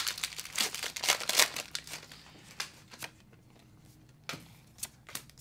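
Pokémon trading cards and their plastic packaging being handled: crinkling and quick flicks of card and plastic, busiest in the first two seconds, then a few scattered clicks.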